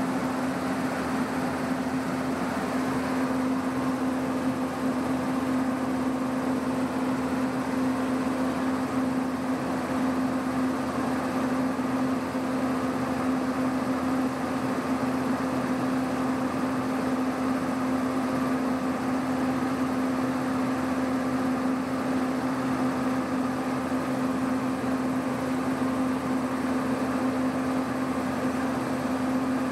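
Electric locomotive standing with its cooling blowers running: a steady, unchanging mechanical hum with a low droning tone.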